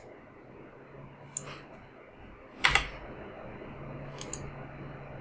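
A few sharp clicks from working a computer mouse and keyboard, the loudest a double click with a low thump about halfway through, over a faint low steady hum.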